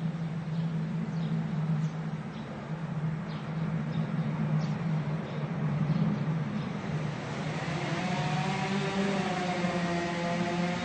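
Two-stroke chainsaw running steadily at high revs while cutting a tree. From about seven seconds in, a second engine-like sound with several pitches swells up over it.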